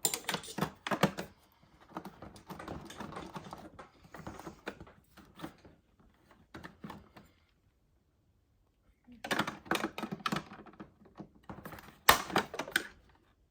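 Irregular clicking and rattling of hard plastic parts being handled and pried apart on a refrigerator's dispenser assembly, in bursts with a short quiet pause in the middle and a sharp snap about twelve seconds in.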